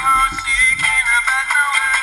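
A song playing: music with a sung vocal line.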